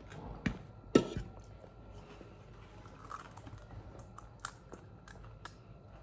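Eating pani puri: crisp hollow puri shells cracking and being chewed in short, sharp crunches, the loudest about a second in, then smaller scattered crackles.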